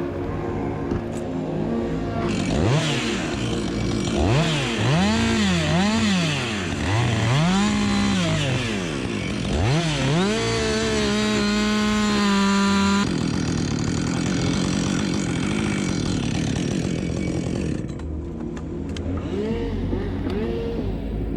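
Chainsaw engine revved up and down over and over, then held at a high, steady pitch for a couple of seconds before it drops abruptly back to a lower running speed, with a few short blips of the throttle near the end.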